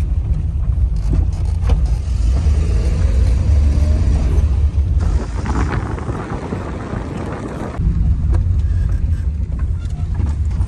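Car engine and road noise heard from inside the cabin while driving on an unpaved road: a steady low rumble that changes in texture about halfway through and again near eight seconds in.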